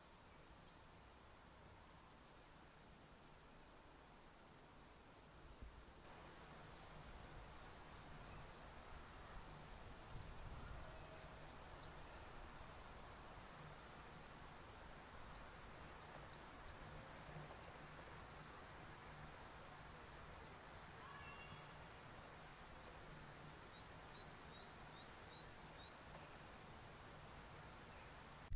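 Faint songbird song: short phrases of four to six thin, high notes, repeated every two to three seconds, over a quiet outdoor hiss.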